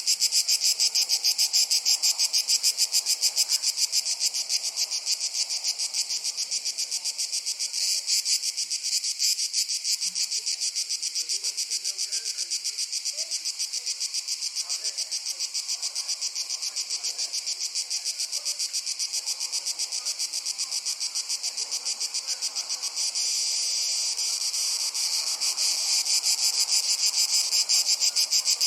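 A dense summer chorus of insects, cicadas or crickets, keeping up a fast, even, high-pitched pulsing buzz.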